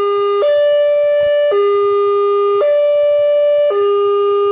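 Railway level-crossing warning alarm sounding its two-tone electronic signal, a higher and a lower tone alternating about once a second: the warning that a train is approaching the crossing.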